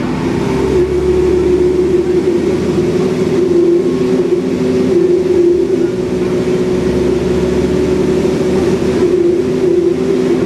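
Alexander Dennis Enviro 400 bus with a Cummins ISBe diesel, heard on board running at a steady pace: a loud, even engine and drivetrain drone with a strong held mid-pitched hum over a low rumble.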